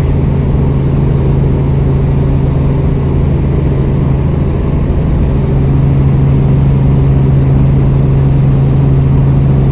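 Helicopter in flight: a loud, steady drone with a strong low hum, getting slightly louder about halfway through.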